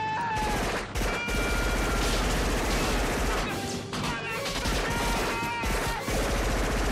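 Film soundtrack of sustained automatic gunfire, several weapons firing together in a continuous rapid volley.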